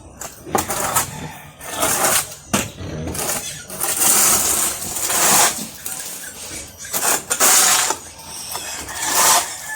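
Shovel scraping pig manure across a concrete floor, in repeated strokes about once a second.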